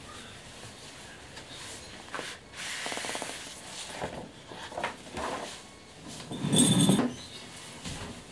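Paper rustling as loose sheets and a magazine are shuffled on a desk, then a louder chair noise about six and a half seconds in as someone sits down.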